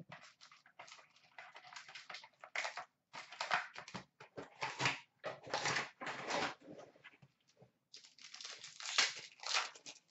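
Foil wrapper of a Panini Totally Certified hockey card pack being torn open and handled, crinkling and rustling in irregular bursts.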